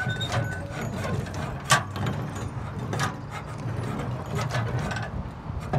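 Scattered clicks, rattles and knocks from a wheeled hot-rubber crack-sealing applicator and its bander shoe being worked over asphalt, over a steady low hum. One sharp knock comes about a second and a half in.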